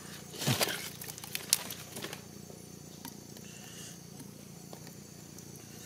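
Scattered clicks and crackles of hands handling a trapped crab and its tangle of nylon fishing line on wet mangrove mud, busiest in the first two seconds and then dying down to a faint hiss.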